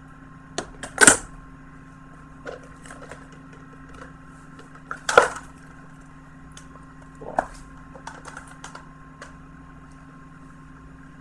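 Plastic Blu-ray cases being handled, clacking and knocking against each other and the box. A few sharp clacks stand out, the loudest about a second in and about five seconds in, with lighter ticks between.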